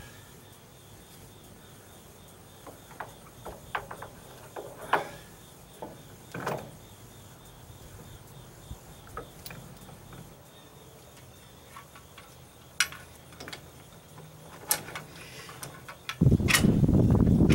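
Scattered metal clinks and clicks of a come-along's chain, hook and ratchet being hung from a wooden rafter. About a second before the end a loud, steady, low rushing noise suddenly starts and drowns them out.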